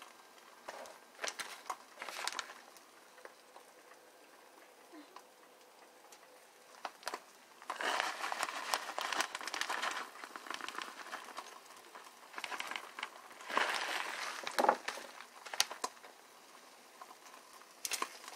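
Beaten eggs sizzling softly in a nonstick frying pan, with a few louder spells of sizzling and spoon scraping as the eggs are stirred.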